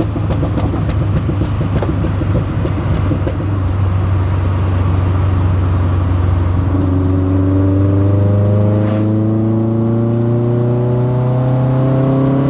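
VW Golf Mk1's 2.0 16-valve four-cylinder (ABF) with individual throttle bodies and a Supersprint 4-2-1 exhaust, heard from inside the cabin. For about the first half it runs at steady revs with a rough, crackly rasp. Then it settles into a smoother note that slowly rises in pitch as the car accelerates.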